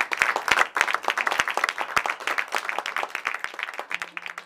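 Audience applauding: dense clapping that thins out and fades. Near the end a low held note comes in beneath it.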